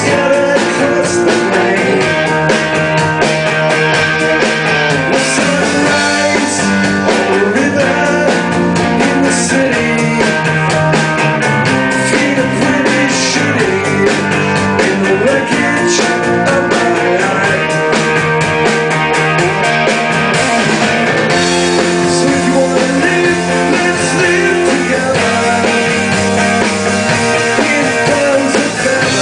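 Rock band playing live: electric guitars, bass guitar and drum kit, loud and steady throughout.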